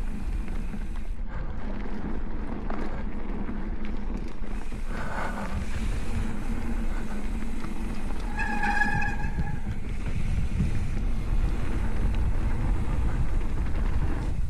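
Wind rushing over the microphone and mountain-bike tyres rolling over a dirt trail on a descent, with a short high squeal of a disc brake about eight and a half seconds in.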